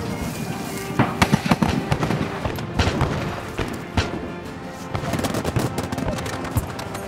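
Black-powder musket fire, sharp shots in a quick cluster about a second in and scattered single shots around three, four and five seconds, over background music.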